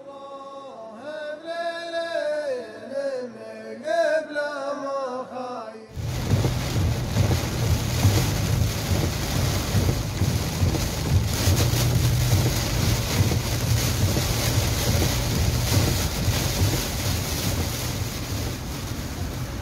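A short melodic intro jingle, then heavy rain and strong wind: a loud, dense rushing noise with deep, uneven wind buffeting on the microphone.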